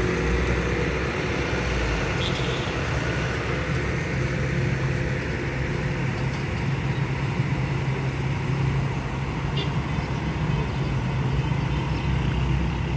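Heavy truck engine running steadily, a low, even hum.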